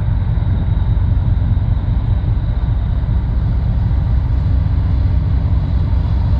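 Ferry's machinery running during a berthing trial: a steady low rumble with a faint, even hum on top.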